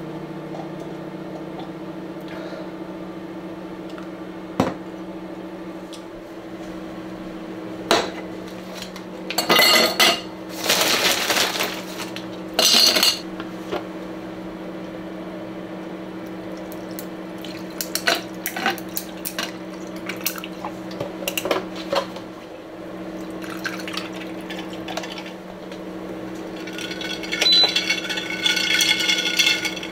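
Dishes and cookware clinking and clattering, with a few loud bursts of clatter about ten seconds in, over a steady low hum. A stretch of hissing comes near the end.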